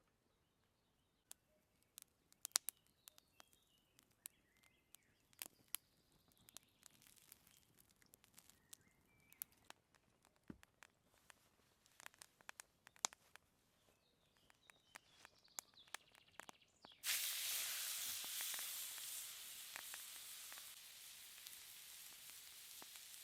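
Food sizzles loudly on a hot cooking stone. The sizzle starts suddenly about 17 seconds in and slowly fades. Before it there are scattered light clicks and taps, with a few faint bird chirps.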